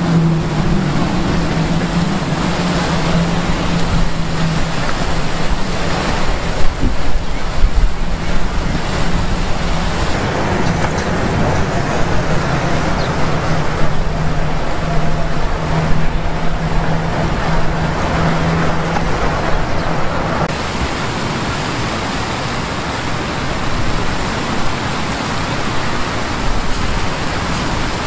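Many jets of a two-tiered fountain splashing into its basin: a steady, loud rush of falling water, with city traffic noise mixed in. A low steady hum underneath stops about twenty seconds in.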